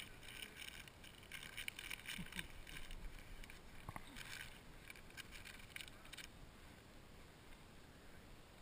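Faint water lapping and splashing against a kayak hull, in small irregular bursts that die away about six seconds in.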